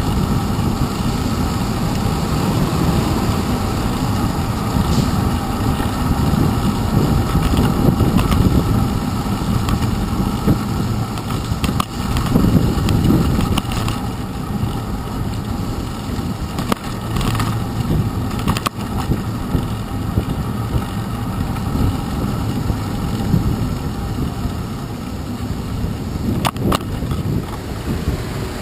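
Steady low rumble of wind and road vibration picked up by a handlebar-mounted GoPro Hero 2 on a bicycle riding through city traffic, with car engines around it. There are several short rattles along the way.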